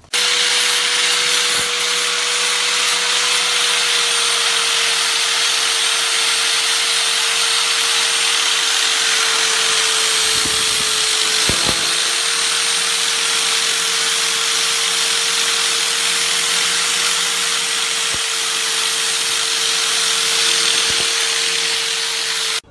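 Power grinder running steadily at full speed, grinding the surface of a forge-welded metal billet to clean it up: a steady whine over a loud grinding hiss that starts and stops abruptly.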